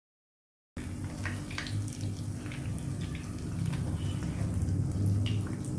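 Breaded chicken malai kebabs shallow-frying in a pan of oil: a soft steady sizzle with scattered pops and crackles over a low hum. It starts abruptly out of dead silence about a second in.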